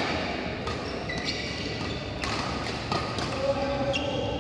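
Badminton play: several sharp smacks of rackets striking the shuttlecock, about a second apart, mixed with short high squeaks of court shoes on the mat.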